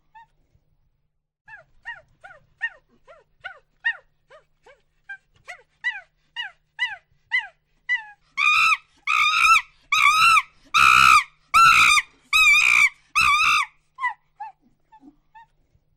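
Monkey hooting: a series of short, quiet hoots, two or three a second, that builds about halfway through into six or seven loud, longer calls, then drops back to a few soft hoots near the end.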